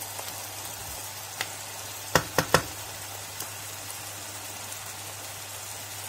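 Butter sizzling steadily in a frying pan, with four sharp knocks of a utensil on the pan: one about one and a half seconds in and three in quick succession just after two seconds.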